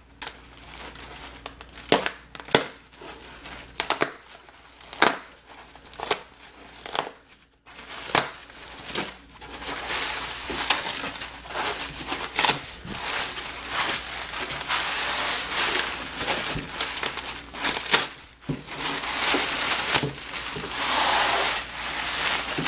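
Foam packing wrap being cut open and pulled apart by hand. Scattered sharp crackles at first, then continuous rustling and crinkling from about eight seconds in.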